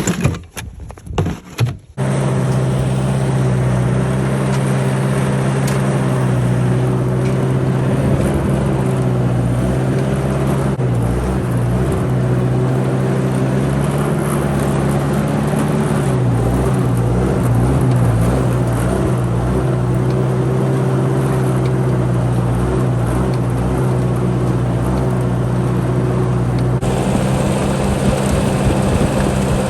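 A few knocks, then, about two seconds in, an engine cuts in abruptly and runs steadily at a constant pitch and loud level.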